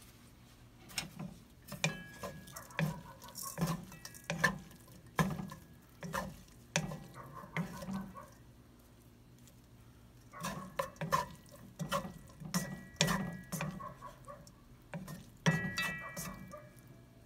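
Wooden chopsticks and a wooden spatula tossing bean sprouts in a nonstick wok: irregular clacks and scrapes against the pan, in two runs with a pause of about two seconds midway.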